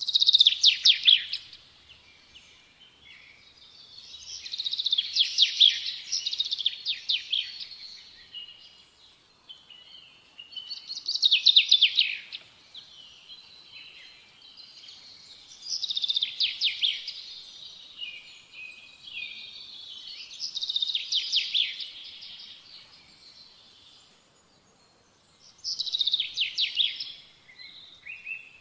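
A songbird singing in repeated phrases of rapid trilled notes, six phrases about five seconds apart.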